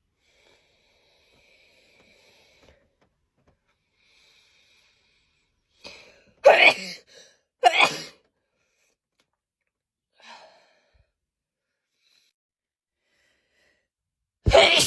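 A person sneezing in a hay fever attack: two loud sneezes about a second apart about halfway through, then another at the very end.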